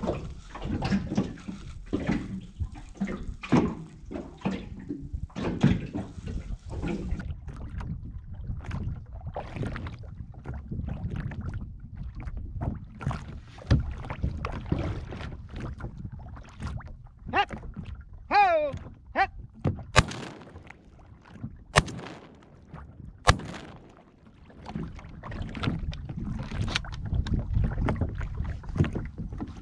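Shotgun fired three times, about a second and a half to two seconds apart, at a duck rising off the water: the first shot to flush it, then two more at it. Under it a steady low rumble of wind and water against a small boat.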